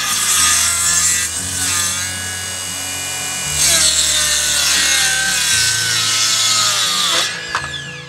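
Makita cordless circular saw cutting through the end of a wooden plank, its motor whine wavering under load over the hiss of the blade in the wood. About seven seconds in the cut ends and the motor winds down with a falling whine.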